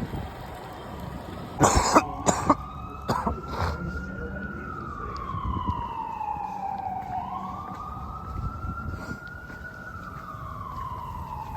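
An emergency vehicle's siren wailing, its pitch slowly rising and falling in long sweeps. A few loud short bursts cut in close by about two and three seconds in.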